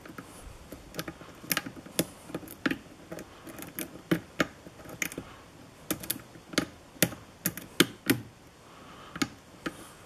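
Lock pick raking and lifting the pins of a spooled brass pin-tumbler lock held under a tension wrench: irregular sharp little metallic clicks, about two a second.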